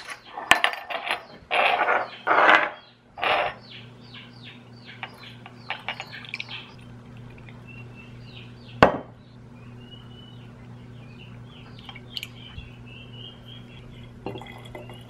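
Glass bottles and jars clinking and knocking as they are handled on a tile counter, then liquid glugging and trickling as homemade vanilla extract is poured through a small metal funnel into an amber glass bottle. One sharp knock of glass on the counter comes a little before the middle, and a thin stream trickles into a glass bottle through the second half.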